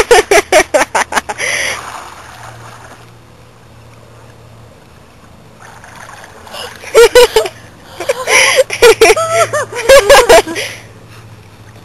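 Pool water splashing as a person swims, with a quick run of splashes in the first second. From about seven seconds in there are more bursts of splashing, mixed with wordless vocal sounds.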